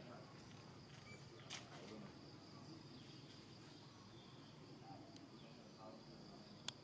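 Near silence: faint outdoor ambience with a steady high-pitched insect drone, and a short sharp click near the end.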